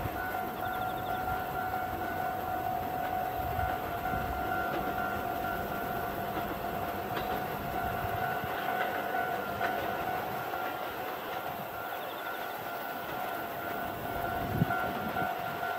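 A diesel-locomotive-hauled train approaching from a distance, heard as a low rumble under a steady high ringing tone. One sharp knock sounds near the end.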